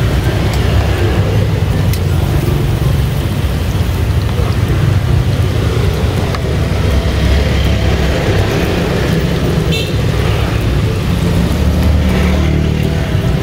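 Hot oil sizzling and crackling steadily in a pan as an egg-filled martabak wrapped in spring-roll skin fries, over a steady low rumble.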